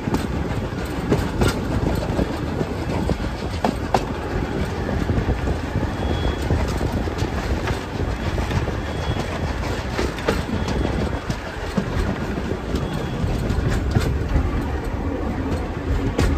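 Passenger coaches of a steam-hauled train rolling along the track, heard from an open carriage verandah: a steady low rumble with irregular sharp clicks from the wheels.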